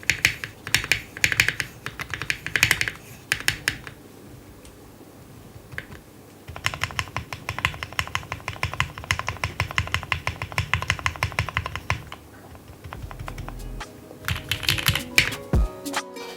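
Typing on a custom 60% mechanical keyboard: lubed Cherry MX Black Hyperglide linear switches on a polycarbonate plate in a silicone-filled Tofu60 case, with Domikey keycaps. Short clusters of keystrokes come first, then after a lull a run of fast, even typing, then a few more strokes. Music starts near the end.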